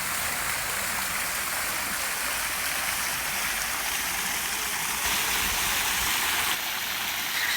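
Fountain water splashing, a steady rush of falling water.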